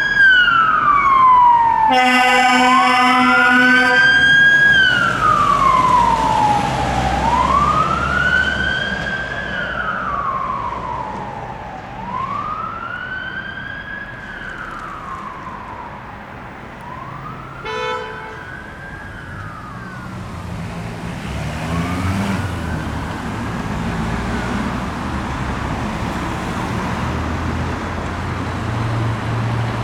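Emergency One Scania P320 fire engine's wailing siren, sweeping up and down about every four and a half seconds and fading as the appliance moves off. A two-second air-horn blast comes about two seconds in and a short toot near the middle, while a low rumble grows toward the end.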